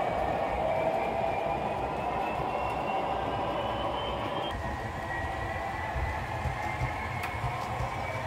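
OO gauge model trains running on the track. A thin, high motor whine rises in pitch and breaks off about four and a half seconds in, over the rumble of wheels on the rails. The rumble grows louder in the second half as a model locomotive hauling coaches passes on a nearer track.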